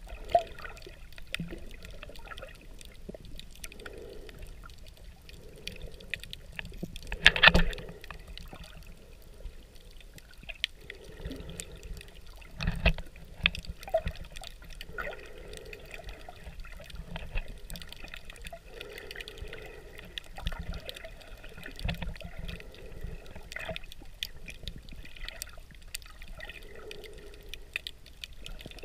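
Underwater sound picked up by a camera submerged on a shallow coral reef: muffled water noise with many scattered small clicks and crackles, and soft swells every couple of seconds. A louder knock comes about seven seconds in.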